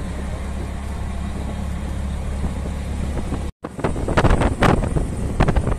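Riding in an auto-rickshaw: a steady low engine and road hum, then after a cut about three and a half seconds in, louder gusty wind buffeting on the microphone over the running engine.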